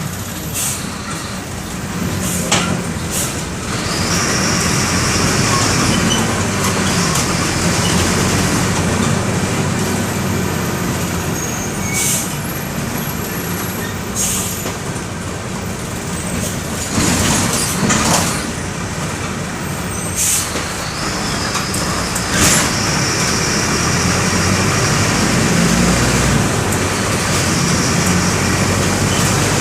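Mercedes-Benz OF-1519 bus's four-cylinder OM 924 LA diesel running as the bus drives, heard from on board. Several short sharp noises break in at scattered moments, and a faint high whine comes and goes twice.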